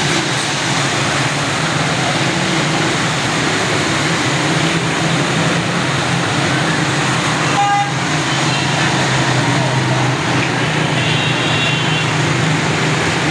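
Traffic on a flooded street: motorcycle and car engines running and tyres pushing through standing water as one steady noise. A brief horn toot sounds about eight seconds in.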